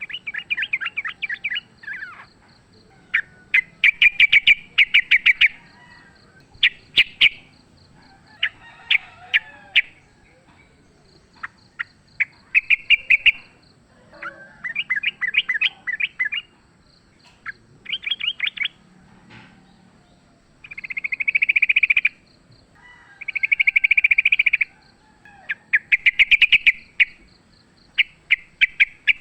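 Yellow-vented bulbul (trucukan) singing in loud, fast chattering trills. The bursts last about a second or two and come every few seconds. A faint, fast ticking sounds higher up between and under the phrases.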